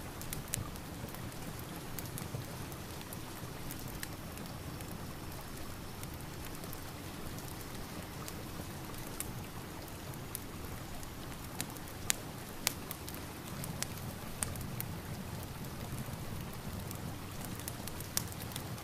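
Steady rain ambience with scattered sharp pops and crackles from a wood fire, a couple of louder pops about twelve seconds in.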